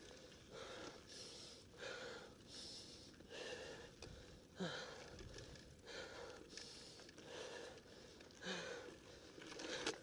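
A mountain biker's hard, rhythmic breathing while riding: quick puffs of breath, roughly one and a half a second, from exertion.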